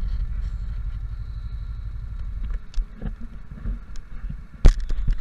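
Go-kart engine running at low speed, a low pulsing rumble that dips twice. The camera is handled and knocked, giving a sharp loud knock near the end.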